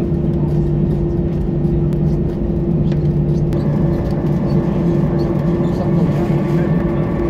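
Airliner cabin noise: a steady drone of the jet engines and the rumble of the aircraft rolling on the ground after touchdown. A higher steady whine joins about halfway through.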